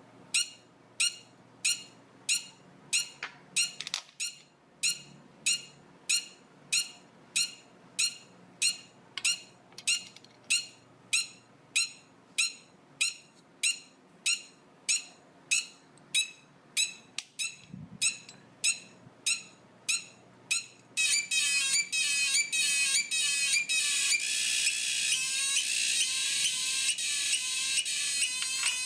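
Homemade transistor sound-effects circuit, an astable multivibrator driving a small loudspeaker, beeping in short high chirps about twice a second. About 21 seconds in, it changes to a louder, continuous, rapidly warbling tone.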